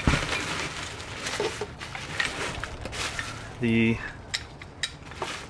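Plastic packaging and bubble wrap crinkling and rustling as a wrapped winch rope and hook are handled and pulled from a cardboard box, with a few sharp clicks near the end.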